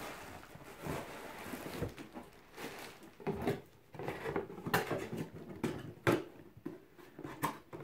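A cardboard box and a plastic-bagged inflatable being handled: irregular rustling and crinkling of the plastic, with knocks and scrapes of the cardboard.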